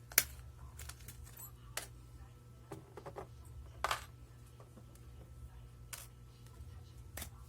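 Sharp, separate clicks and taps of an airsoft Glock 18 gas-blowback pistol's small parts being handled during disassembly, about five in all. The loudest comes just after the start and another near four seconds in, over a steady low hum.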